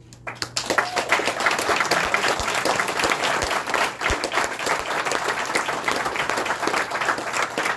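Applause from a group of people, breaking out just after the start and keeping up steadily.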